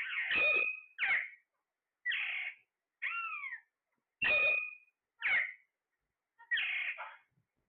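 Parrot calls: seven short screeches about a second apart, some harsh and some with a clear pitch that bends and falls.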